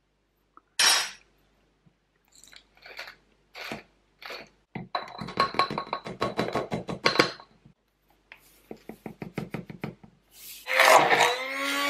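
Spices shaken from a glass jar and a shaker into a plastic jug: runs of quick rattling taps and clinks, with a few knocks before them. A louder burst comes in near the end.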